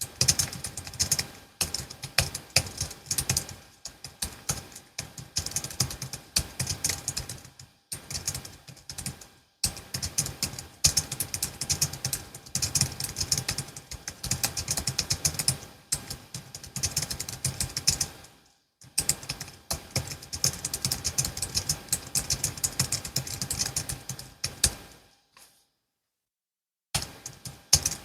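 Steady, fast typing on a Logitech MX Keys S low-profile keyboard, the keys clicking in quick runs with short pauses. Near the end it stops for about two seconds, then starts again.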